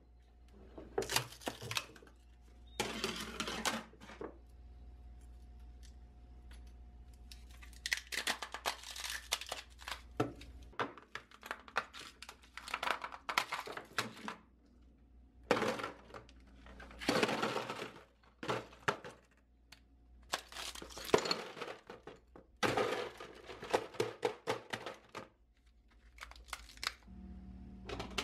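Ice cubes being cracked loose from plastic ice cube trays and clattering into a clear plastic bin, in repeated bursts of cracking and rattling with short pauses between.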